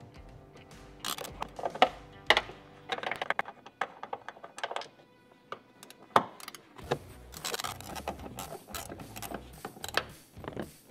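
A 12 mm ratcheting wrench clicking in short runs as it loosens the bolts on a truck door's lower hinge, with a few sharp metal clinks.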